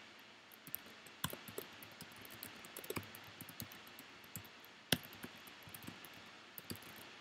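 Faint typing on a computer keyboard: irregular key clicks, with a few louder clacks about a second in, near the middle and about five seconds in.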